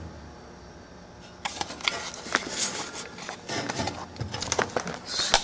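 Handling of a paper valve tag: about a second and a half in, scattered rustling, crackling and clicks begin, with one sharper click near the end.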